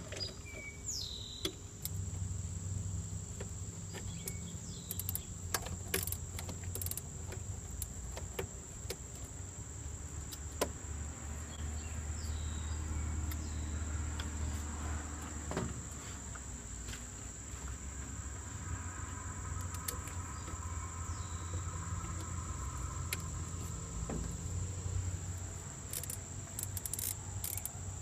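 Steady high drone of insects, with a low hum that comes and goes and scattered sharp clicks and taps of hand tools on the engine.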